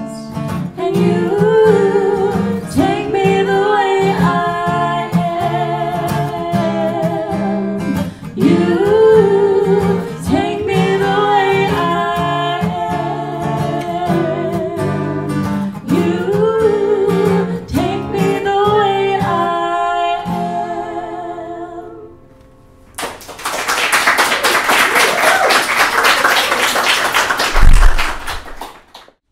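Women singing over a strummed acoustic guitar as a song ends, fading out about three-quarters of the way through. After a short pause the audience applauds for about five seconds, with one loud thump near the end.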